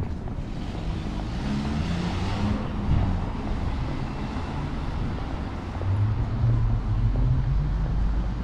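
Cars driving past on a city street: a low engine hum with tyre noise, swelling once about two to three seconds in and again about six to seven seconds in.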